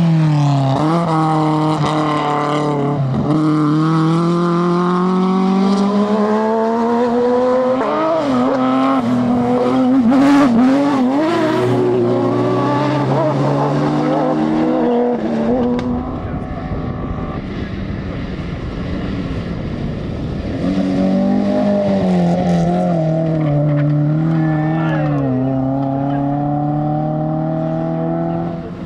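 Rally car engine revving hard, its pitch climbing through the gears and dropping at each shift, with a few sharp cracks in the middle. For a few seconds the engine note fades into rougher noise, then a rally car revs up through the gears again near the end.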